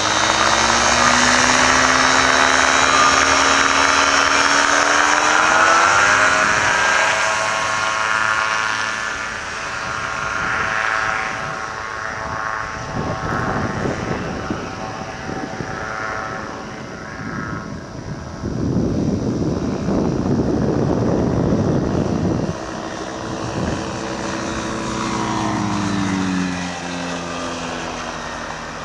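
Challenger II ultralight's engine and propeller running, its pitch rising over the first few seconds. Rough rushing noise fills the middle, and the engine pitch falls again near the end.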